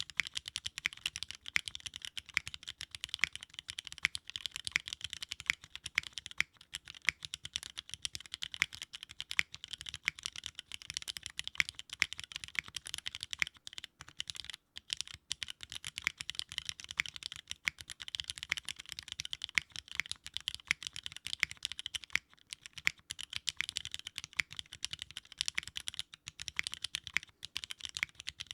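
Steady typing on a Sangeo65 custom mechanical keyboard with Cherry MX Black linear switches, an aluminium plate, no foam and GMK keycaps: dense key clacks with a few brief pauses, one about halfway through.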